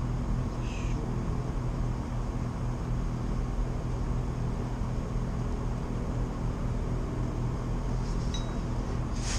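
Carrier Infinity heat pump's outdoor condenser fan running steadily with a low hum. The compressor stays off because it is failing to start.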